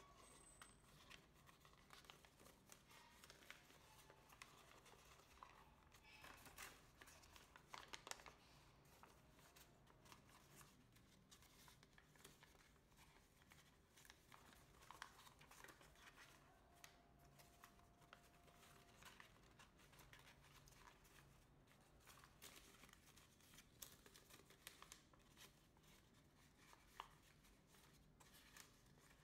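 Faint crinkling and rustling of folded origami paper being creased and pressed by hand, in small irregular crackles, a few slightly louder around eight seconds in.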